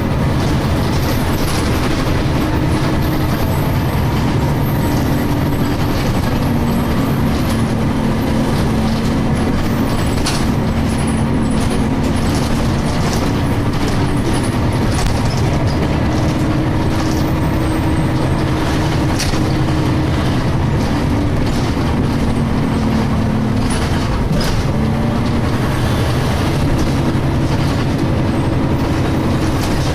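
DAF SB220 single-decker bus engine running under way, heard from inside the saloon: a loud continuous drone whose engine note shifts up and down several times, with occasional knocks and rattles from the body.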